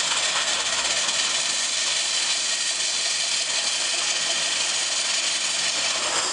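Steam shovel working, its engine giving off a steady hiss of escaping steam as it digs into the dirt and hoists a full bucket.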